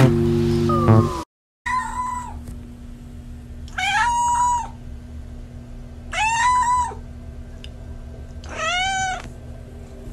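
Music cuts off about a second in. Then a black domestic cat meows four times, about two seconds apart. Each meow is a drawn-out call that rises at the start, holds and then drops.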